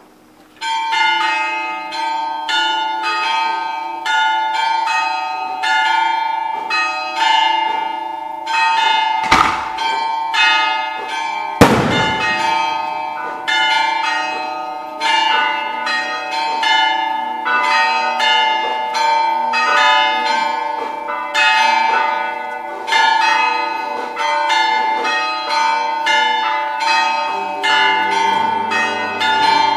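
Church tower bells start ringing about a second in, struck over and over in quick, overlapping strokes with a steady ringing hum beneath. Two sharp bangs about two seconds apart cut through the ringing about a third of the way in.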